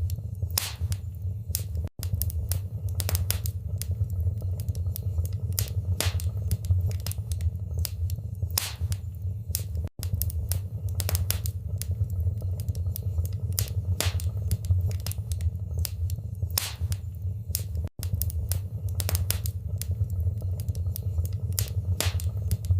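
Wood fire burning in a fireplace: a steady low rumble with frequent irregular crackles and pops. The sound cuts out for an instant three times, about eight seconds apart.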